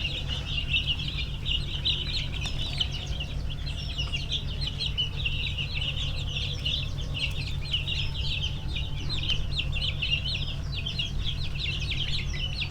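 A flock of four-day-old broiler chicks peeping constantly, many short high chirps overlapping into one dense chorus, over a low steady hum.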